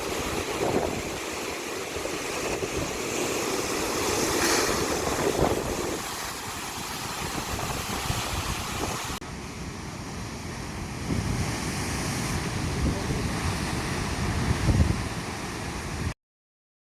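Ocean waves breaking as surf, with wind buffeting the microphone; the sound changes abruptly twice as the shots cut and stops dead near the end.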